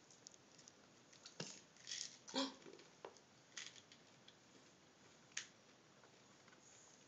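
Near silence broken by a few faint clicks and small handling sounds as M&M's candies are picked out of a small plastic container by hand.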